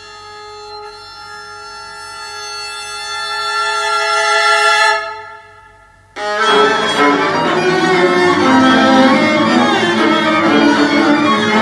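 Recorded concert music: a held chord of steady tones swells, then fades away about five seconds in, and at about six seconds bowed strings come in suddenly with dense, busy, overlapping lines.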